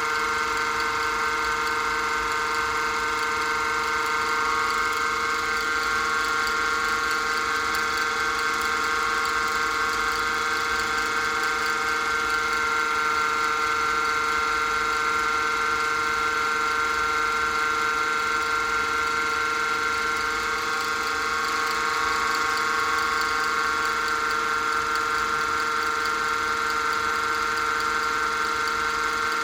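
Small wood lathe running steadily with a constant motor whine that does not change speed.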